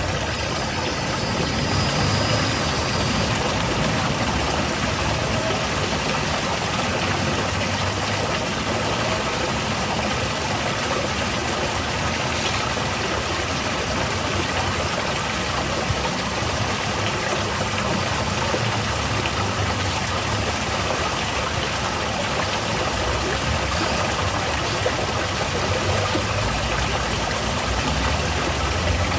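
Garden waterfall: water falling steadily into a pool, an even rushing noise, with a low rumble underneath.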